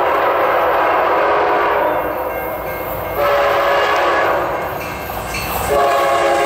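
Locomotive air horn sounding a loud, steady chord in three long blasts that run into one another, the chord shifting at each new blast, about three seconds in and again near the end.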